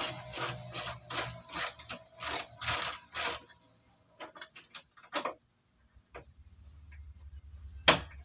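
Socket ratchet wrench clicking on a radiator mounting bolt as it is undone: a quick run of clicks, about three a second, for three and a half seconds. Then a few faint scattered clicks and one sharp click near the end.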